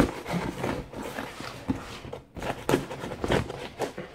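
A cardboard parcel being handled and opened on a table: a string of irregular knocks, taps and scrapes on the box, the loudest right at the start.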